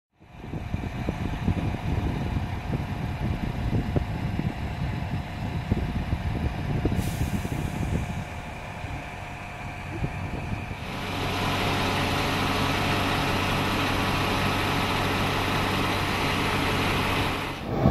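Large diesel tractor engines running in cut-together clips: an uneven rumble for the first several seconds, then from about eleven seconds a steady, even hum of the Fendt 1050's six-cylinder diesel.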